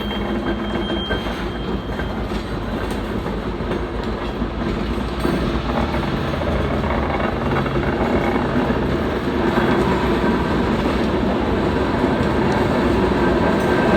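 New York & Atlantic Railway freight train rolling past on the rails, a continuous rumble of wheels and cars on the track that grows a little louder about halfway through.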